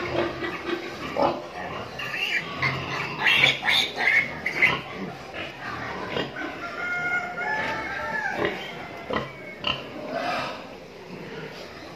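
A sow and her piglets calling: irregular short squeals and grunts, busiest in the first half.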